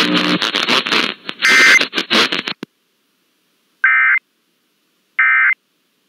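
Weather-radio receiver static, hissing and crackling, with a brief tone in it; it cuts off about two and a half seconds in. Then come two short bursts of EAS SAME digital data tones, about a second and a half apart: the end-of-message bursts that close the warning.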